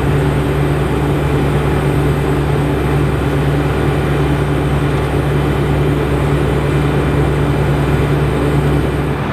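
FENDT IDEAL 9T combine running steadily in the field, a constant low engine drone with machinery noise over it.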